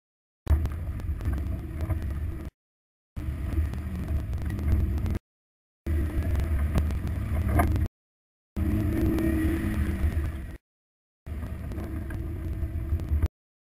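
Off-road Jeep crawling slowly up a dirt trail: engine running at low speed under a steady low rumble of tyres and wind on a camera mounted on the Jeep's side. The sound cuts out to silence for about half a second roughly every two and a half seconds.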